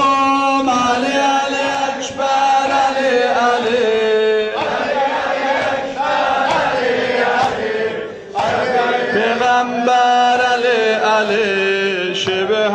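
A group of men chanting a Muharram lament (noha) together in long, drawn-out sung phrases, with a few sharp beats at the breaks between phrases.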